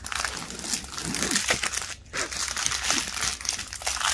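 Clear plastic bags of diamond painting drills crinkling and crackling as they are handled, with a short pause about two seconds in.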